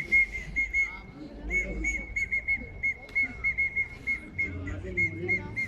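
A whistle blown in a rapid series of short, high pips at one steady pitch, about three to four a second and irregularly spaced.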